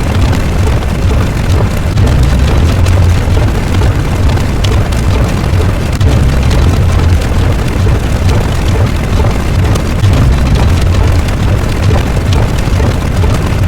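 Loud, continuous rumbling roar with dense crackling throughout: an explosion-type sound effect.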